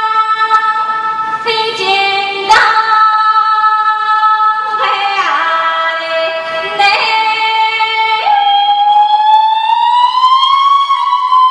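A woman singing a Chinese traditional folk song solo in a high, clear voice, holding a series of long notes. The last note starts about eight seconds in and is held, bending slowly up and then down.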